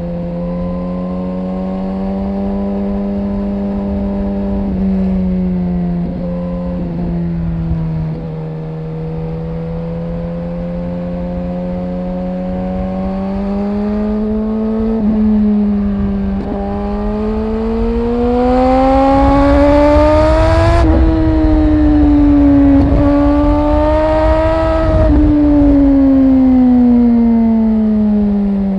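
Suzuki GSX-R 1000's inline-four engine under way, running at steady revs and then pulling harder with rising pitch. The throttle shuts off sharply about two-thirds in, opens once more, then the revs fall away near the end. A low rumble of wind on the microphone runs underneath.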